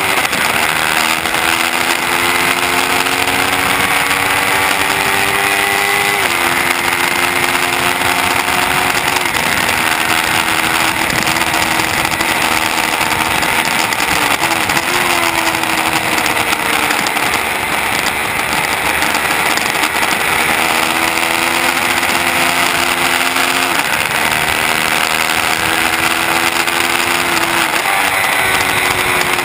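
2015 Yamaha R3's 321cc parallel-twin engine, fitted with an aftermarket muffler, pulling hard at racing speed: its pitch climbs and drops sharply at gear changes several times. Heavy wind rush runs under it.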